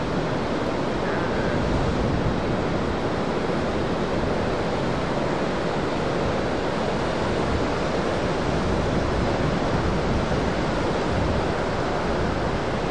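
Heavy ocean surf from a large swell breaking, a steady wash of whitewater noise with no distinct crashes standing out.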